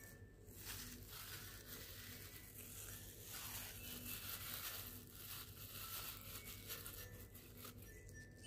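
Faint crinkling of thin plastic food-handling gloves as fingers pick apart a fried fish.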